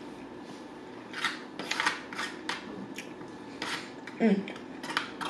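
Close-miked eating: a run of short, crisp, irregular clicks and crunches from chewing and from a plastic fork picking at food in a plastic takeout container. A brief hummed 'mm' comes at about four seconds.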